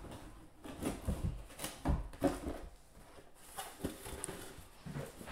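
Shrink-wrapped cardboard boxes of trading cards being pulled out of a cardboard shipping case and set down on a table: several irregular dull knocks, with cardboard sliding and scraping between them.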